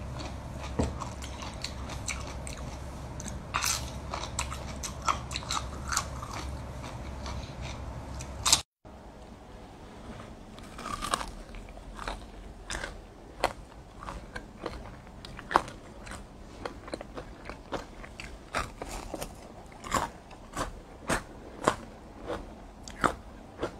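A person biting and chewing food close to the microphone, with many short, sharp crunches. The sound cuts out for a moment about nine seconds in, then the crunching and chewing go on.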